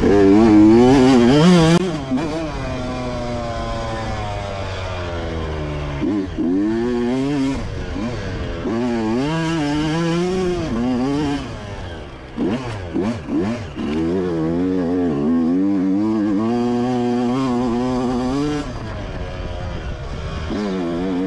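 Two-stroke dirt bike engine revving up and dropping back again and again as the bike is ridden, its pitch climbing with each pull. About twelve seconds in it drops off to a few short throttle blips, then pulls steadily again.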